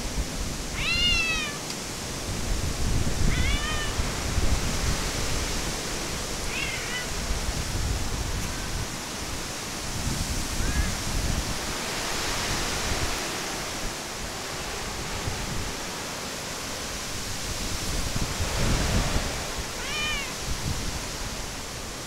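Stray cats meowing several times, short rising-and-falling calls, with a few fainter ones in between. Under them is a steady rush of typhoon wind and rain, with gusts rumbling on the microphone.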